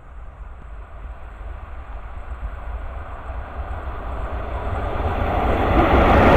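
Approaching passenger train, its rumble and rushing noise growing steadily louder as it nears.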